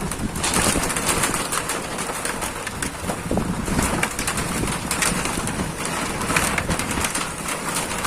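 Heavy rain falling steadily in a storm, with gusting wind rumbling on the microphone.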